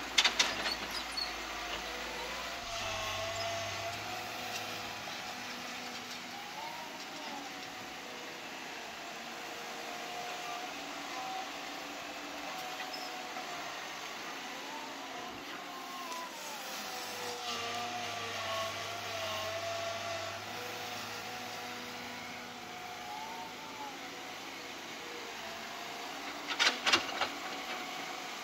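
Caterpillar 312B hydraulic excavator's diesel engine running under load, its pitch rising and falling as the hydraulics work the boom and swing. Dirt and rocks clatter into the steel dump-truck bed just after the start, and again near the end.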